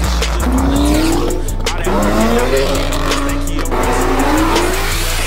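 Hip-hop track with heavy bass and a steady beat, over Ford Mustangs accelerating hard, their engines revving up in several rising sweeps.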